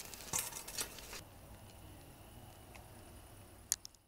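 Light irregular clicks and crackles from a wire grill basket of grilled sausages. About a second in they give way to a quieter steady hum, with a couple of clicks near the end.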